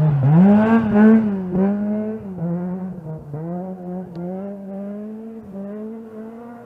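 Ford Fiesta rally car's engine passing close on a gravel stage, then accelerating away. It revs up, drops sharply in pitch three times at quick upshifts, and fades as the car goes into the distance.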